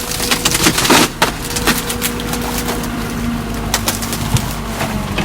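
Excavator's diesel engine running under load while its bucket crushes a cheap plastic septic tank, with a series of sharp cracks and crunches of the plastic breaking. A steady hydraulic tone comes in about two seconds in.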